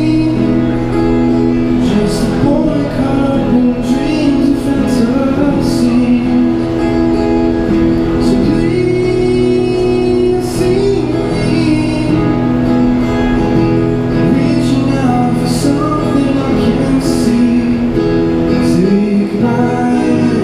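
A man singing and playing acoustic guitar, amplified through a small busking amp, with sharp beats recurring about every two seconds under the held chords.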